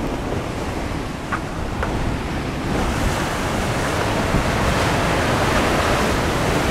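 Heavy sea surf breaking and washing over a rocky shoreline, with wind buffeting the microphone. The rushing wash grows louder a little under three seconds in.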